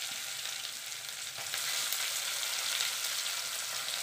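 Freshly added chopped onions frying in hot oil with whole spices in a steel kadai, a steady sizzle with faint pops.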